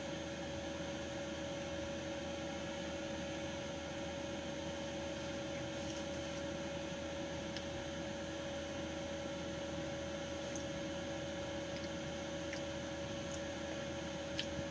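Steady electrical or mechanical hum with an even hiss underneath, unchanging throughout, with a few faint small clicks.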